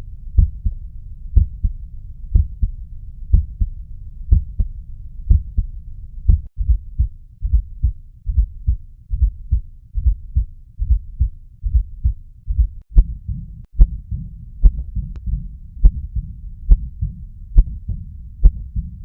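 Recorded heart sounds: regular low-pitched heartbeats, played as a few clips joined with brief breaks about six and a half and thirteen seconds in, where the rhythm changes.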